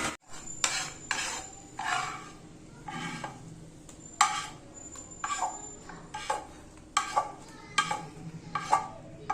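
Metal spoon stirring and scraping a pan of hot sugar, turmeric and black pepper mixture, with irregular clinks and scrapes against the pan every half second to a second.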